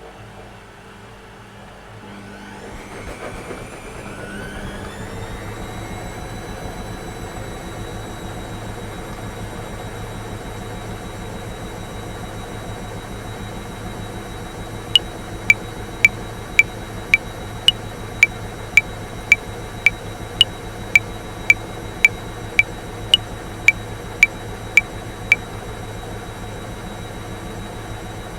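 Washing machine motor winding up, its whine rising in pitch over a few seconds, then running with a steady hum and whine as the drum spins. About halfway in, a metronome clicks at 110 beats a minute for four bars of 5/4: twenty clicks, the first of each bar accented, then it stops.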